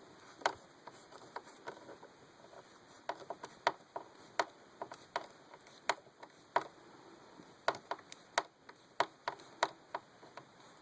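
A screwdriver driving the last screw into the TV stand's mount: a string of sharp, uneven clicks, about one or two a second.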